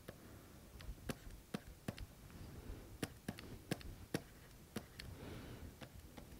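Stylus tapping on a pen tablet while writing: a string of light, irregular ticks, two or three a second, faint.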